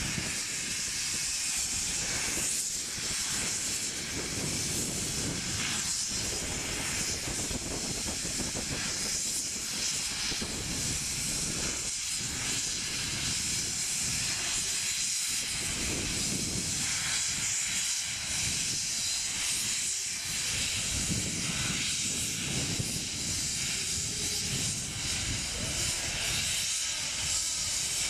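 Steam locomotive moving slowly with its coaches, steam hissing steadily from the open cylinder drain cocks, with a low uneven rumble from the engine and wheels underneath.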